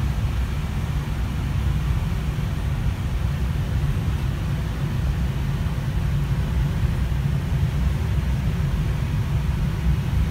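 Steady low background rumble with a faint hiss over it, unchanging throughout.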